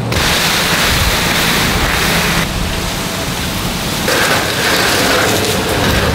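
Leafy cut lily pilly branches being dragged along the ground, a dense rustling and scraping of leaves and twigs that shifts in character a couple of times.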